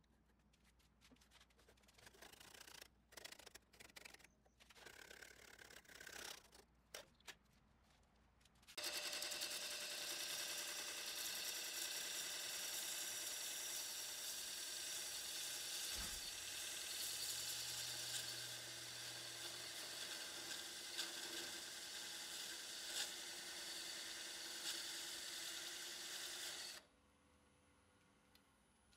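A few seconds of faint handling clicks and rustles, then an electric power tool runs steadily for about eighteen seconds with a whine of several steady tones, starting and stopping abruptly.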